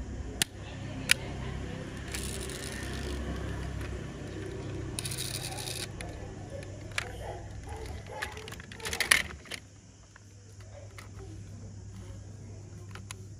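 Die-cast toy cars being handled: two sharp clicks within the first second or so as the small opening doors are snapped shut, then scraping and rustling of cars against a plastic basket, and a quick cluster of clattering knocks about nine seconds in.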